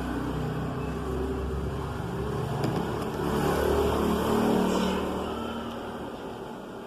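An engine running, growing louder to a peak about four seconds in and then fading away.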